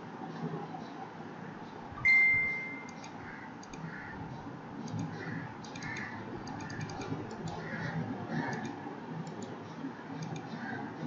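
Computer mouse clicks and faint clicking over a low background hiss. A single chime tone sounds about two seconds in and rings away over about a second.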